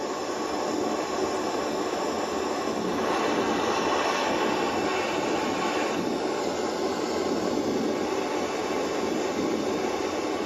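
Butane camping-gas blowtorch burning steadily, a continuous hissing rush of flame playing on a small steel crankshaft that is being heated to red heat for silver soldering.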